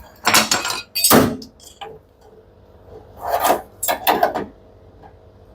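Metal clinking and scraping in a few short bursts as a 13 mm T-wrench works loose a front-loading washing machine's drum damper.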